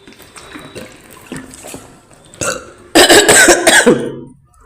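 Soft eating sounds, then about three seconds in a loud burp lasting about a second, its pitch sliding down. The eater puts it down to having a cold and a cough.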